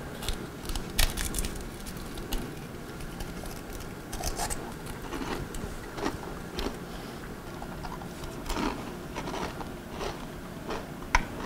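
Irregular clicks, scrapes and rubbing from a wall-phone handset and its coiled cord being handled and fidgeted with, with a sharp click near the end.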